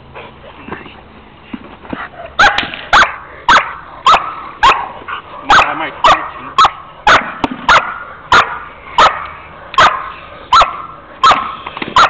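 Young German Shepherd barking steadily at the helper in protection bite work, about two barks a second, starting a couple of seconds in.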